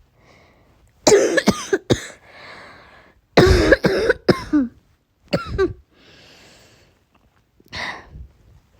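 A person coughing in repeated fits, about four bouts, with rough breaths drawn in between. It is the bad, painful cough of someone who is sick.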